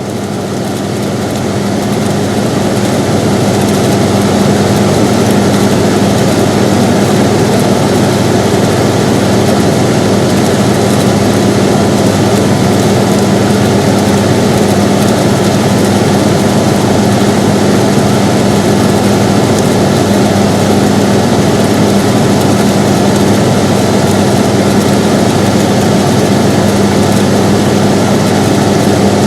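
Air conditioner running: a steady rush of airflow over a constant low hum, fading in over the first few seconds and then holding even.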